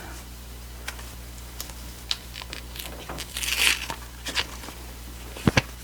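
A small envelope from an album package being opened and handled: crinkling and tearing with scattered small clicks, a louder rustle about three seconds in, and two sharp knocks near the end.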